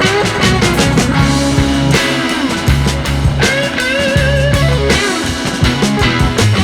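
Background rock music with electric guitar, bass and drums over a steady beat.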